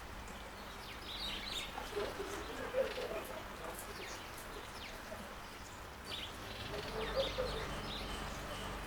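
Wild garden birds calling at a bird bath fountain. Low clucking calls come about two seconds in and again near the end, with short higher chirps between, over the steady trickle of the fountain water.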